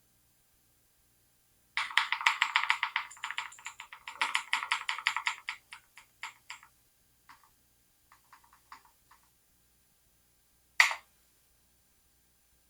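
Computer keyboard keys being pressed in a fast run of clicks for about four seconds, then a few scattered presses, and one sharper, louder click near the end.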